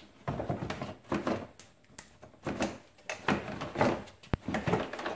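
A stiff plastic ATV footwell panel on a Yamaha Grizzly scraping and knocking as it is worked into place by hand. It comes as a series of irregular scrapes, with a sharp click a little past four seconds in.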